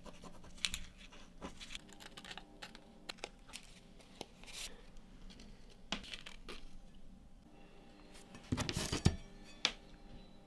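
Paper knife templates being handled on a table: scattered rustles, slides and light taps, with a denser, louder rustle about three quarters of the way through.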